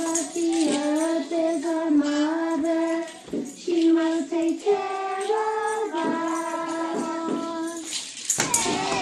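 Young children singing a song together, with musical accompaniment; the sung notes are held and step up and down in pitch, with a brief pause about a third of the way through.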